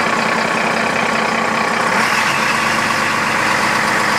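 Caterpillar 966D wheel loader running steadily, its diesel engine and drivetrain heard up close beside the axle and differential that are being checked for a noise. The tone shifts slightly about two seconds in.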